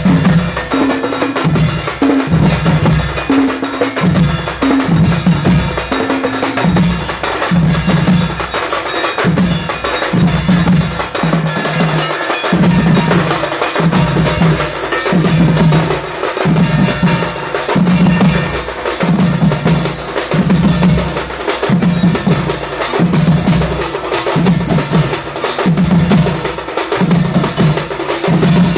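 Singha Baja drum band playing: large stick-beaten barrel drums and tall hand drums in a fast, steady rhythm, with deep drum strokes about once a second under a dense clatter of sharp strokes.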